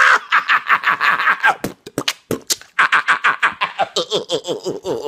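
A man laughing in an exaggerated way: fast, rhythmic bursts of laughter, about six a second, broken by a short pause around two seconds in.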